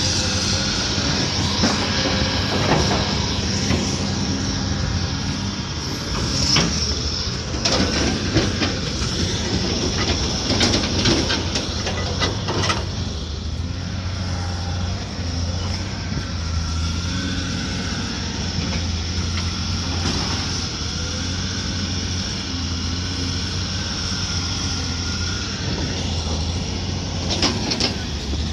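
Excavator diesel engine running steadily at a constant speed, with scattered knocks and rattles about a third of the way in and again near the end.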